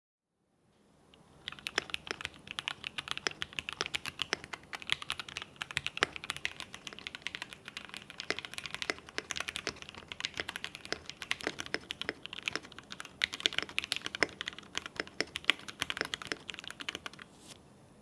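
Typing on a Mode Sonnet mechanical keyboard with Gateron Ink Black linear switches on a POM plate, fitted with DCD Hundred Acres keycaps. A fast, steady run of keystrokes starts about a second in and stops just before the end.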